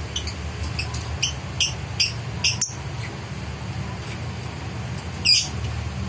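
A caged lovebird chirping in strong breeding condition. It gives a run of short, sharp, high chirps in the first three seconds, then one louder, longer call a little after five seconds, over a steady low hum.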